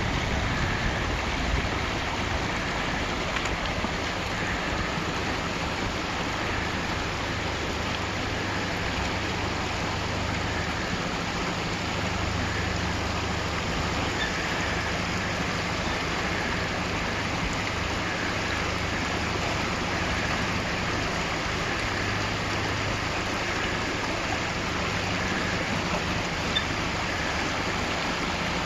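Fast-flowing creek water rushing over rocks, steady throughout, with the low steady hum of a Land Rover Discovery 1's 300Tdi four-cylinder turbodiesel crawling slowly down a rock step toward the water.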